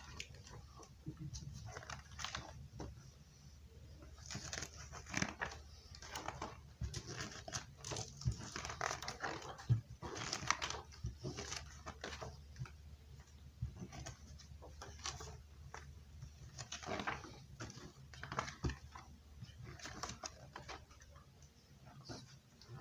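Paper pages of a picture book being leafed through one after another: short rustles and flaps, roughly one a second, uneven in loudness.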